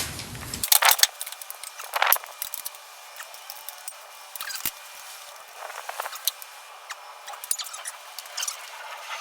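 Metal engine parts and hand tools clinking and clattering as they are handled, with a few sharper knocks about one and two seconds in and lighter clicks after.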